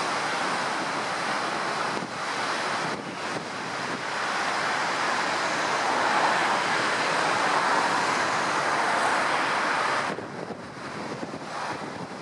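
Strong wind buffeting the microphone over rough, breaking surf: a steady, dense rushing noise that drops noticeably in level about ten seconds in.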